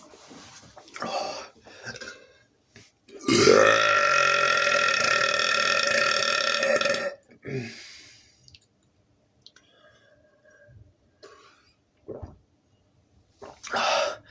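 A man's long, loud, deliberate burp, brought up after drinking Coca-Cola, starting about three seconds in and lasting about four seconds at a steady pitch. Shorter, quieter sounds come before and after it.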